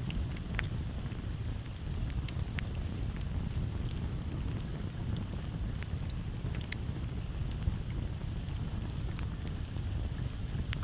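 Campfire burning with irregular sharp crackles and pops over a low steady rumble of flames. Crickets make a steady high chirring in the background.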